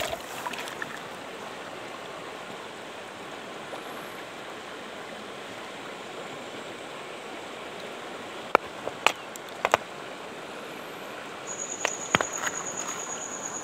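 Steady rush of shallow stream water, with a few sharp clicks of stones knocking together in the hand in the second half. A thin, steady high tone comes in near the end.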